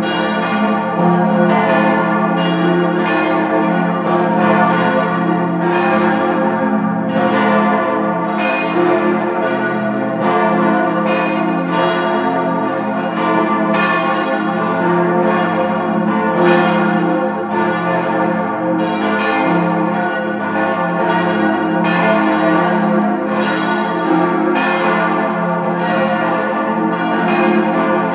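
Full peal of four large swinging bronze church bells, cast by Rüetschi of Aarau in 1904 and tuned to an F major chord (F A c f), the heaviest about 8 tonnes. Their clappers strike about once a second, and each stroke rings on into the next, giving a deep, continuous overlapping ring.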